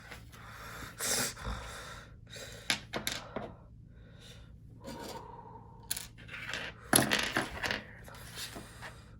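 Small plastic LEGO pieces clicking, rattling and scraping as hands sort through them, in a scattering of short bursts. The loudest bursts come about a second in and again about seven seconds in.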